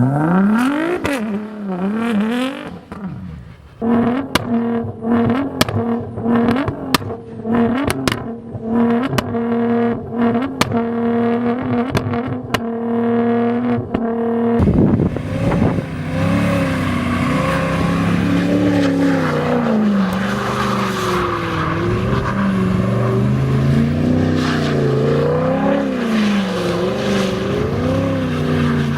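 Nissan GT-R engine revving up at the start, then held at steady high revs for about ten seconds with sharp crackles. From about halfway on the revs rise and fall again and again over a rushing noise as the wheels spin in a burnout.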